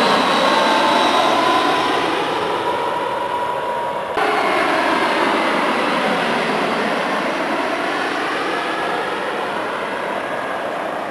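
An Airbus A320 airliner passing low on approach, its jet engines making a steady whine that slides down in pitch. About four seconds in the sound cuts abruptly to a Bombardier CRJ regional jet on approach, a slightly quieter jet engine noise whose whine shifts in pitch as it passes.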